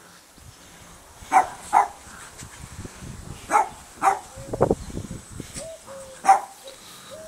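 Small spaniels barking during play: a handful of short, sharp barks, two close together about a second and a half in, two more around three and a half to four seconds, and a last one past six seconds.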